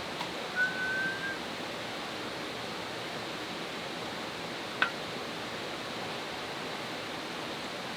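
Steady rushing of a valley stream flowing over rocks. A short high tone sounds about half a second in, and a single sharp click comes about halfway through.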